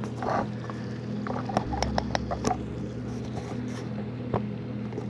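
Scattered small clicks and taps of hands and tools working at a spa's equipment bay, mostly in a quick cluster about a second and a half in, with one more near the end, over a steady low hum.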